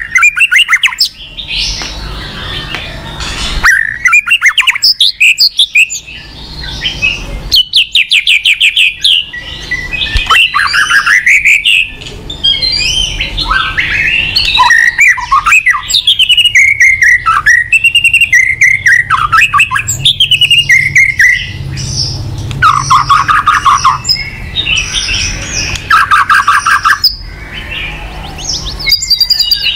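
Loud, nonstop medley of songbird song: white-rumped shama with canary and other songbird voices, in runs of very fast trills, gliding whistled phrases and chattering with brief pauses. It is a lure track meant to provoke a white-rumped shama into aggressive singing.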